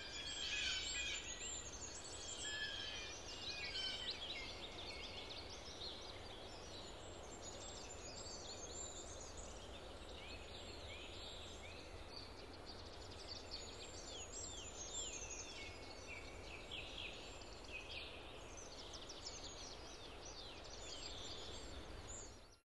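Many small birds chirping and singing together in a dense, overlapping chorus of short high calls, over a faint steady low rumble of outdoor background.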